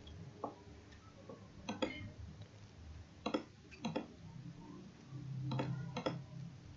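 A handful of sharp computer mouse clicks, some in quick pairs, spread over several seconds; a low hum swells up near the end.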